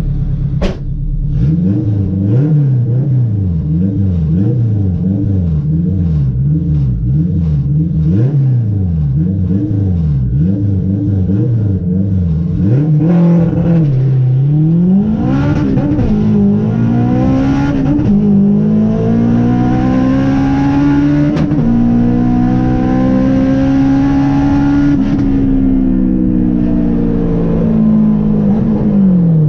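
Turbocharged Honda K20 inline-four revved up and down repeatedly on the line, then launched and accelerating hard through the gears, each shift a drop in pitch. It finishes with a long full-throttle pull in top gear before the revs fall away near the end.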